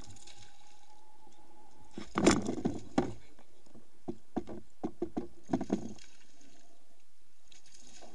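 Hooked peacock bass (tucunaré) splashing and thrashing at the surface right beside a kayak as it is fought in. A loud splash comes about two seconds in, followed by a string of short sharp splashes and knocks, with a thin steady whine over the first two seconds.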